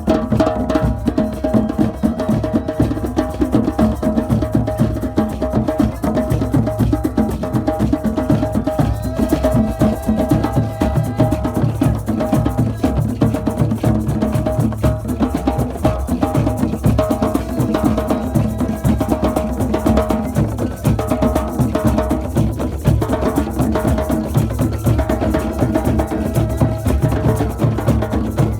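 Drumming: many rapid drum strokes in a steady rhythm, with a sustained pitched tone running underneath.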